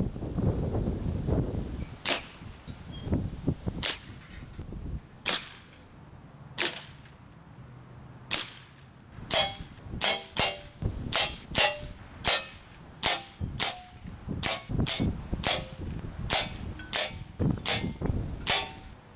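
Air gun shots, pellet gun and BB gun, fired at cans. There are a handful of single sharp cracks a second or more apart, then from about halfway a quick steady run of shots, some followed by a brief ring. A low rumble comes at the very start.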